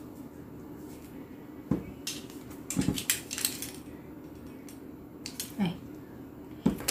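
Stiff album box being handled and its seal slit with a box cutter: a knock, then a quick cluster of clicks, taps and scrapes, with a few more scrapes and knocks near the end.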